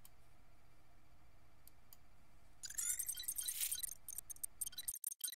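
Faint room tone with a couple of soft clicks, then, a little over halfway through, a burst of stuttering digital glitch sound effect: short chirps and rapid choppy clicks that cut off abruptly into digital silence near the end.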